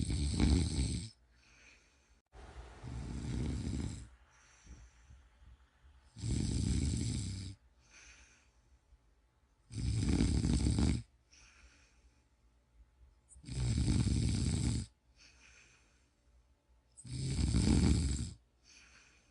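A sleeping person snoring in a steady rhythm: five loud snores about every three and a half to four seconds, each lasting a second or so, with a softer, breathier snore after the first and faint breathing between.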